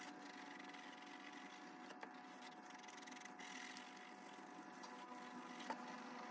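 Graphite pencil scratching faintly on paper in repeated shading strokes, over a steady hum.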